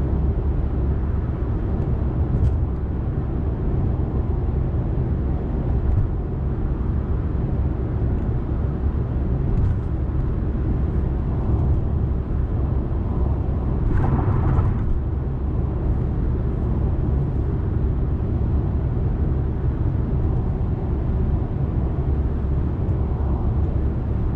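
Steady road and tyre rumble inside a Honda Accord's cabin at highway speed. About fourteen seconds in there is a brief louder swell.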